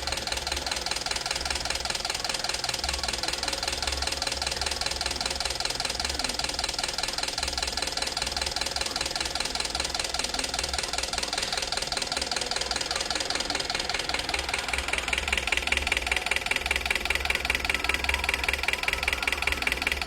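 A car engine idling with a fast, even ticking running through it. About fifteen seconds in, a higher, brighter part of the ticking grows louder.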